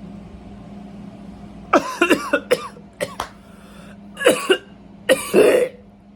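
A man coughing in about four harsh bouts, starting about two seconds in, with the room's air conditioner humming steadily underneath.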